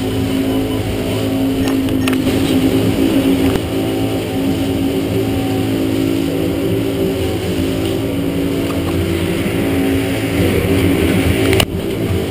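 Twin outboard motors on a rescue boat running hard at planing speed, a steady loud drone with the hiss of the wake and wind over it. The sound changes abruptly near the end.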